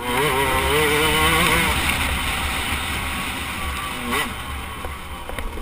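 KTM 125 two-stroke motocross engine heard from the bike itself, revving up and easing off with the throttle, with wind rushing over the microphone. The pitch climbs in the first second or two, drops back around the middle, and rises again about four seconds in.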